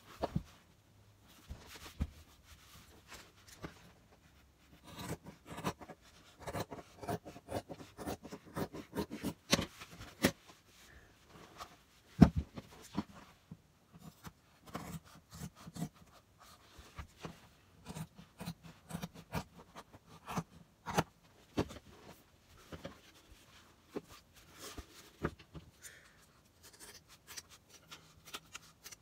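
Hands working fabric over a padded wooden pressing board: rubbing, smoothing and scraping, with many small clicks and taps and one sharp knock about twelve seconds in.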